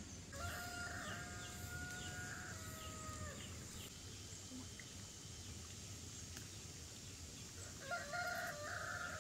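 Rooster crowing twice: one long crow starting about half a second in and lasting about three seconds, and a second crow near the end.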